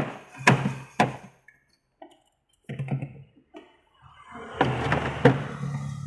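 Plastic parts of a refrigerator's freezer compartment knocking and clicking as they are fitted back into place by hand: three sharp knocks in the first second, then scraping and rattling handling noise that grows busier near the end.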